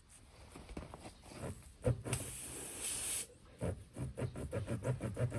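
Air hissing out of a punctured tractor tire for about a second, then a quick run of rasping strokes, about five a second, as a tire-plug reamer is worked in and out of the puncture to clean it before plugging.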